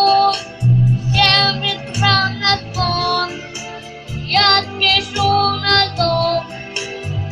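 Instrumental passage of a song: a pitched melody moving note by note over a pulsing bass line, without lyrics.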